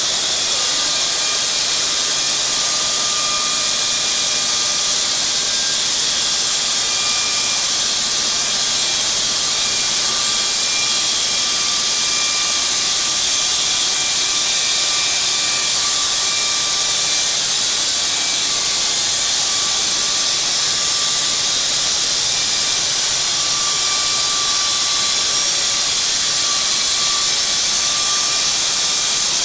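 Donaris Lynx EA bandsaw mill running steadily as its blade cuts through a log: a constant loud hiss of sawing with a faint steady whine underneath.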